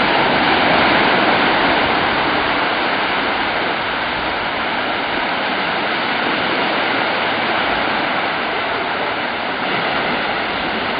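Steady rush of surf washing onto a sandy beach.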